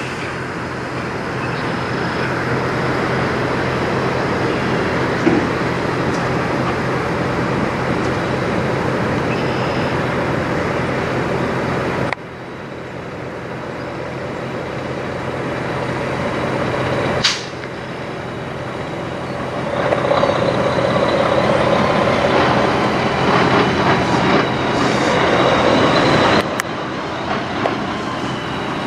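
Diesel engine of a Kenworth semi tractor pulling a trailer, running at low speed as it manoeuvres. A short, sharp sound comes about two-thirds of the way through, and the sound level jumps abruptly twice.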